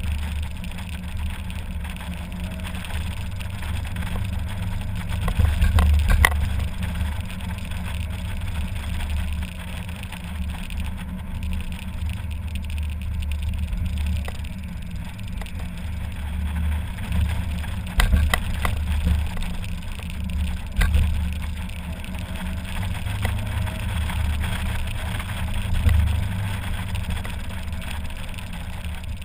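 Mazda MX-5 Miata roadster driving with the top down: engine running at road speed under a low, uneven rumble of wind in the open cockpit, with a few brief knocks from the road or the car.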